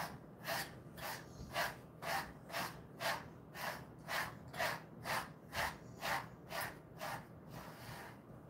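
Brush strokes swishing through a Jindo-mix dog's coat, a steady rhythm of about two strokes a second that fades out near the end.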